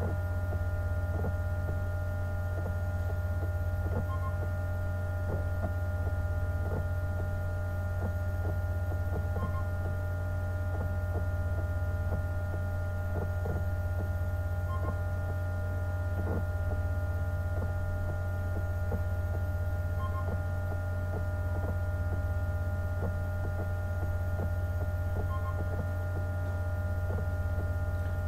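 Steady low electrical hum, with several fainter steady higher tones above it and scattered faint ticks.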